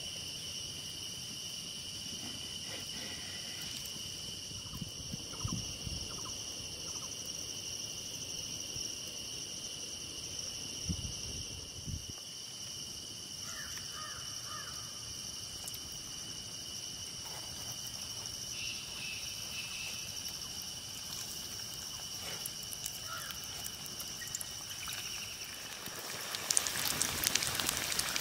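Steady insect chorus, a high droning chirr at two pitches, with a few faint low thumps. Near the end, hot oil starts sizzling and crackling loudly as samosa pinwheels fry in the pan.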